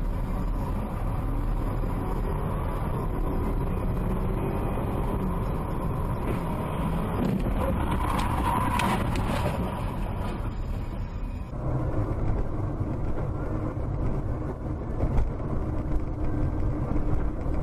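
Car engine and road noise heard from inside a moving car through a dashcam microphone, steady throughout. About eleven and a half seconds in, the sound changes abruptly to a different car's cabin rumble.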